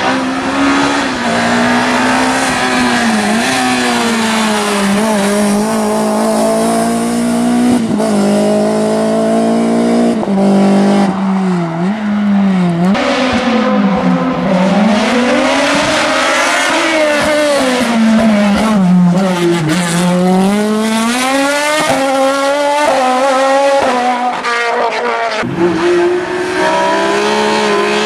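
Race car engines on a hillclimb: several cars in turn pull hard out of hairpins and brake back down for the next, revs climbing and dropping sharply through quick gear changes.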